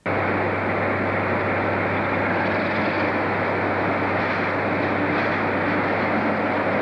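British Rail Class 47 diesel locomotive running in along a platform, its engine giving a steady low hum under an even rumble.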